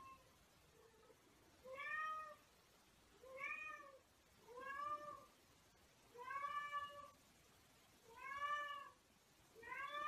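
A domestic cat meowing over and over, about seven faint meows roughly a second and a half apart, each rising and then falling in pitch.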